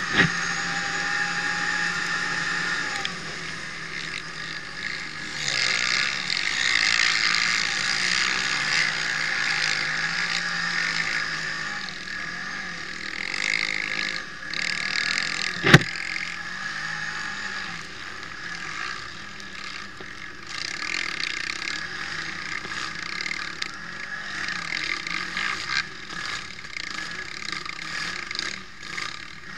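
Can-Am quad's engine running hard at speed, its note rising and falling as the rider works the throttle, under a steady rush of wind and tyre noise on a dirt track. Two sharp knocks stand out, one at the very start and one about halfway through.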